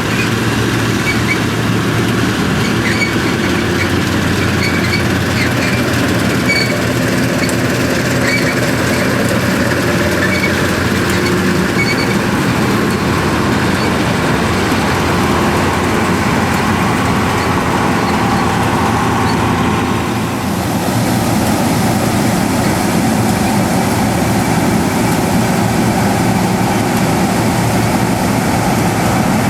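Massey Ferguson 40 combine harvester running steadily while harvesting, its threshing machinery clattering with a light ticking about once a second in the first half. About two-thirds of the way through the sound changes abruptly to a steadier engine note.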